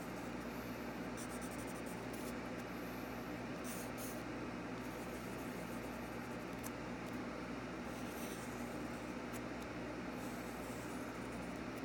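Graphite pencil scratching on paper in short, intermittent strokes while drawing, over a steady background hiss.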